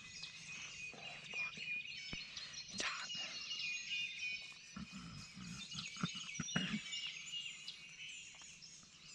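Dawn chorus of many songbirds chirping and whistling in spring woods, with some close rustling about five to seven seconds in.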